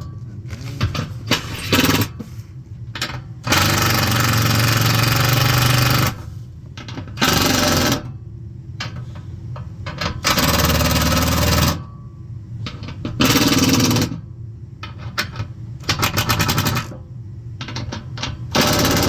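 Cordless impact driver running screws or bolts into the blower motor mount of a gas furnace, in several short rattling bursts with pauses between. The longest burst runs about two and a half seconds.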